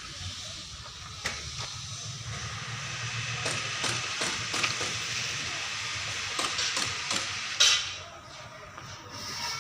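A steady hiss that builds about two seconds in and drops away near the end, over a low hum, with scattered sharp knocks and one loud click near the end.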